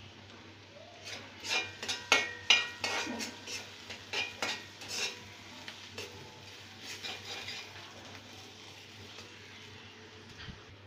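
Spice paste with chili and turmeric powder being stirred and fried down (bhuna) in a metal karahi. The spoon scrapes and clicks against the pan in a quick run for about four seconds, then more lightly, over faint frying.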